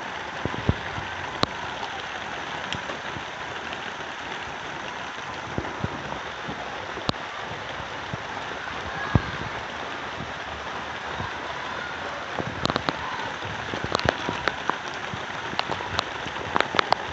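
Steady rain falling on a bare dirt yard, with sharp taps of drops landing close by here and there, more frequent in the last few seconds.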